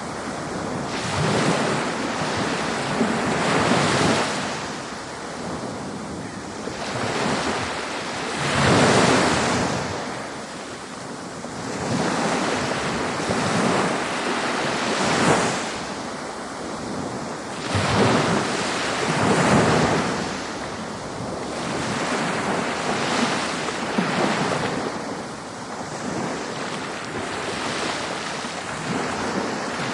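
Ocean waves breaking and washing on the shore, the surf swelling and easing every few seconds, with some wind on the microphone.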